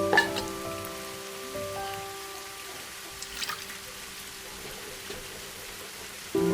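Soft instrumental background music of sustained, slowly fading chords, with a new chord struck near the end, over a steady sizzling hiss with a few small crackles, as of food frying in oil.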